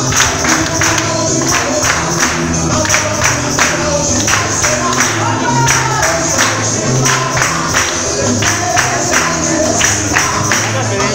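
Gospel music with singing, a bass line and a steady beat of hand claps from the congregation clapping along.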